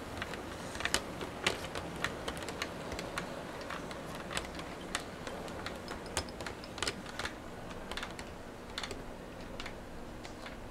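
HO scale model passenger train rolling past, its wheels clicking irregularly over the track joints, with a steady low noise underneath.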